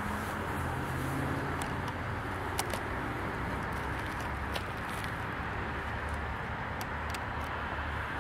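Diesel freight locomotive engine running with a steady low drone as the train approaches slowly, with a few faint clicks scattered through it.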